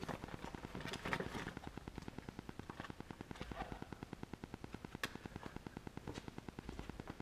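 A machine running with a fast, even pulse of about ten beats a second, with a few sharp clinks over it.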